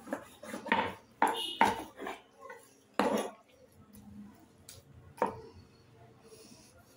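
Knife chopping raw chicken into pieces on a wooden chopping board: about seven irregular chops, most in the first three seconds and sparser after.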